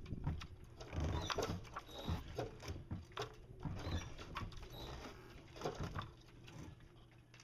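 Irregular light knocks, clicks and scuffs from climbing a sailboat mast on a climbing board with a cam plate, as the gear and line shift against the mast.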